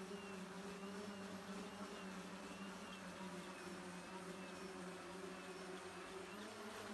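Faint steady buzzing hum of the Levitator 5's electric motors and 12-inch propellers as the homebuilt electric rotorcraft flies, its pitch rising a little about six seconds in.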